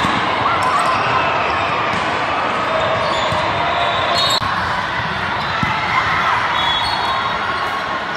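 Live sound of an indoor volleyball match: ball contacts and thuds on a hardwood court, short sneaker squeaks and players' and spectators' voices mixed in a large gym. The sound changes abruptly about halfway through.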